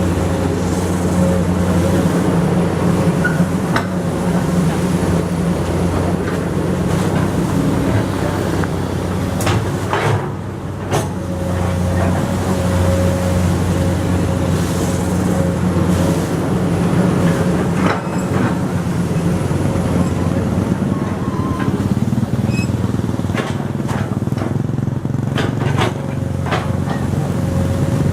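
Komatsu PC200 excavator working: its diesel engine runs steadily under load with a constant whine, easing briefly about ten seconds in, and a few sharp knocks are heard now and then.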